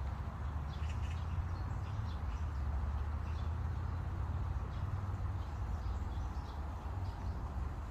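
A steady low rumble with faint, short bird chirps scattered through it.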